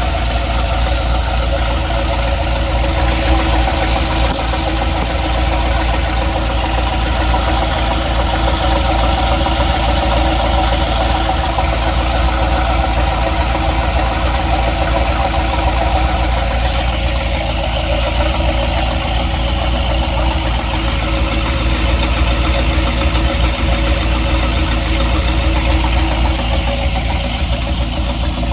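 An engine running steadily at idle with a knocking noise whose cause is not known.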